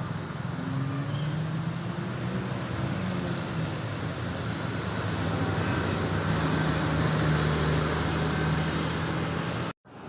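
Motor vehicle engine and road noise, a steady low hum that grows louder in the second half, then cuts off abruptly near the end.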